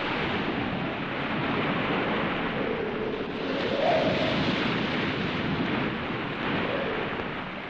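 Wind off the sea: a steady rushing noise with a low tone that rises and swells briefly about four seconds in.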